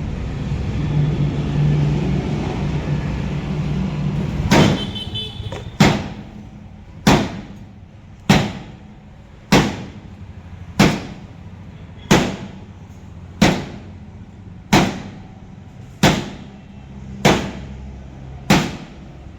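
Heavy hammer blows on steel, slow and evenly spaced at about one every 1.3 seconds, about a dozen in all, starting about four and a half seconds in. Before them a low steady hum.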